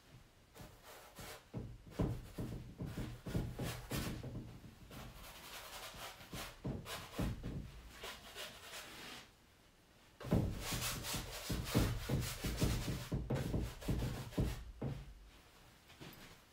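Large paintbrush scrubbing acrylic paint onto a stretched canvas in quick, irregular strokes, in two spells with a short pause between them.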